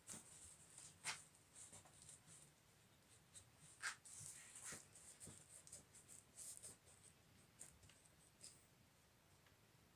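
Faint, scratchy rustling of a fabric upholstery cover as hands rub, tug and smooth it over a small chair's padded back. A few sharper clicks come about a second in and near four seconds.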